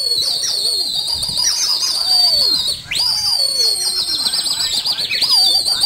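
A long, shrill human whistle held on one high note with warbling trills, broken briefly about three seconds in and then picked up again. This is a pigeon keeper whistling to a flock in flight.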